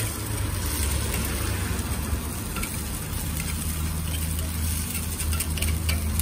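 Takoyaki batter sizzling steadily in a three-plate takoyaki griddle, over a constant low rumble, with faint scattered ticks of a metal pick turning the balls.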